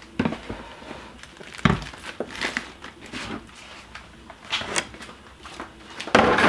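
Bagged chicken carcasses and a plastic bus tub being handled: plastic bags crinkling with scattered knocks and clatters, then a louder clatter of the plastic tub near the end.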